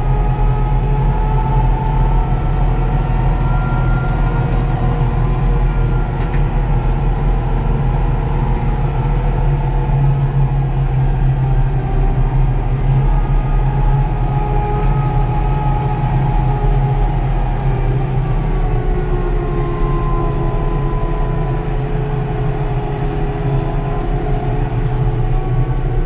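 Fendt tractor's diesel engine running steadily under way, heard inside the cab as a constant low drone. A whine on top slowly rises and falls in pitch.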